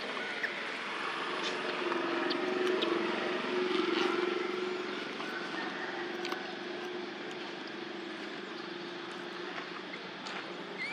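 Steady hum of a passing motor engine, swelling about two to four seconds in and fading toward the end, with a few faint short chirps over it.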